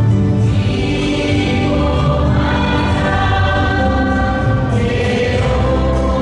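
A church choir singing a hymn in several voices, with long held notes.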